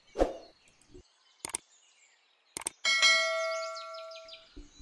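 A short thump near the start and two brief clicks, then a single bell-like ding about three seconds in that rings and fades over about a second and a half.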